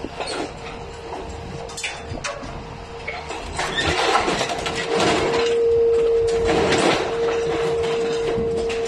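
Hydraulic orange-peel grab on a scrap-handling machine clawing scrap metal out of a steel bin: irregular clanks and metal scraping, busiest in the middle. Under it the machine's hydraulics give a steady hum that gets louder about five seconds in as the load is lifted.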